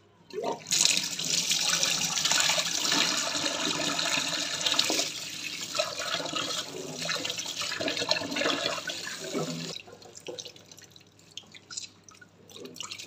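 Kitchen tap running into a stainless steel bowl while hands rinse soaked soy protein pieces under the stream, until the water runs clear. The tap cuts off about ten seconds in, and faint splashing and dripping follow as the wet pieces are handled in the bowl.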